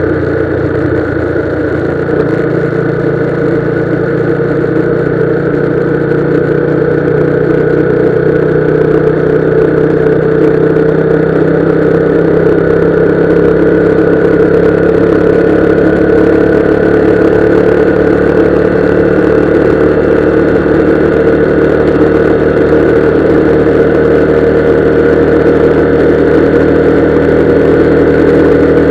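Motorcycle engine running steadily under way, its hum growing a little louder over the first ten seconds and then holding even.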